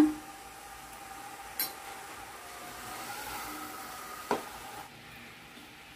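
Two brief clinks of a kitchen utensil, about a second and a half in and again past four seconds, over a low steady hum.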